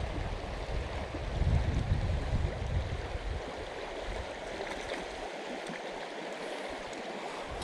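Shallow river running over a stony bed: a steady rush of flowing water. A low rumble rises on the microphone about a second in and eases off after about three seconds.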